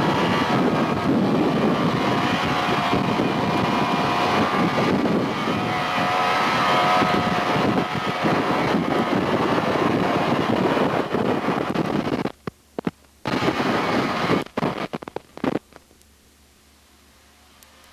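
An engine running steadily with a rumbling, noisy sound and a faint whine. About twelve seconds in it breaks up in several abrupt drop-outs and then falls to a low hush.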